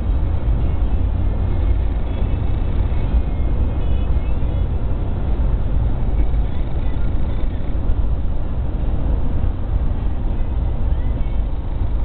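Steady low road and engine rumble inside a moving car's cabin.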